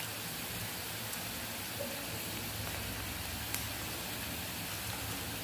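Onions, chillies and garlic sizzling in hot oil in a frying pan, a steady hiss with a few faint pops as freshly added mustard seeds begin to splutter.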